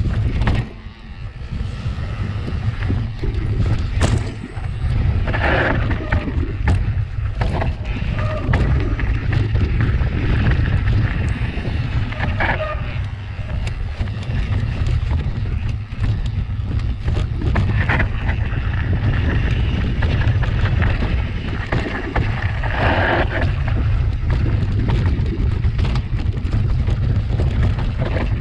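Riding noise of a mountain bike descending a rough natural trail, heard from a camera mounted on the bike or rider: wind buffeting the microphone as a constant rumble, over continual knocking and rattling from the bike on rocks and roots, with a few brief higher-pitched sounds.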